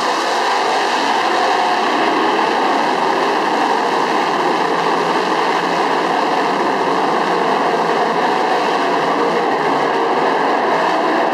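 A pack of big-block modified dirt-track race cars running flat out around the oval, their V8 engines blending into one loud, steady drone.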